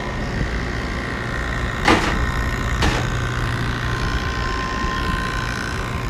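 Steady hum of a running motor, with two sharp knocks about a second apart, the first the louder.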